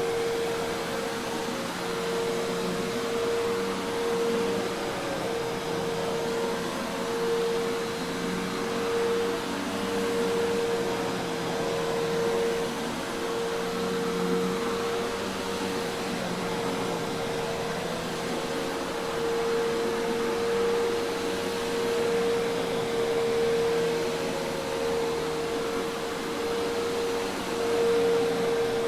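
Hoover Task Vac commercial vacuum cleaner running steadily: an even rush of air with a constant motor hum.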